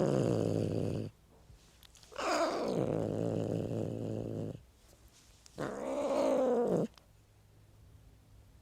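Cat meowing: three long, drawn-out meows, the second sliding down in pitch and the third rising then falling.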